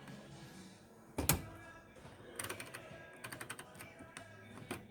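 A single knock about a second in, then several quick runs of light clicks and taps, over faint background music.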